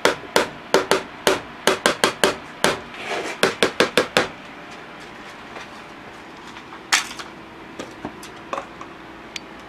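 A large spoon rapped again and again against the rim of a blender jar, knocking off a scoop of sticky peanut butter: a run of sharp knocks, two or three a second, crowding together near four seconds in. One more loud knock near seven seconds, then a few light ticks.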